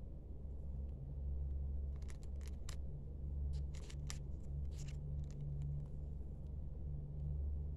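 Small hand flags on sticks being handled: short, light rustles and clicks of the fabric and sticks, clustered from about two to five seconds in, over a low hum.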